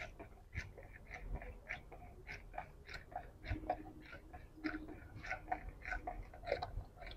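Fingers stirring water in a small plastic bowl to dissolve emptied tetracycline capsule powder: faint, even swishing and light clicks against the plastic, about three a second.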